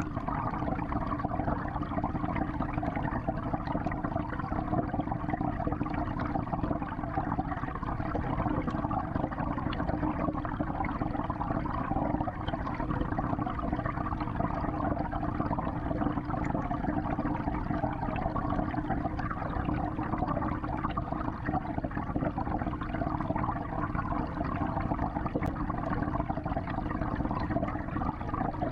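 Steady, even rushing and churning of water circulating in a 55-gallon aquarium, heard from underwater inside the tank.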